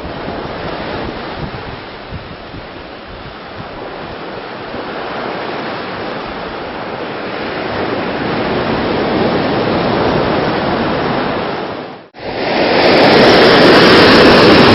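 Ocean surf washing onto a beach with wind on the microphone, slowly growing louder. About twelve seconds in the sound breaks off for a moment and comes back as a louder rush of breaking waves.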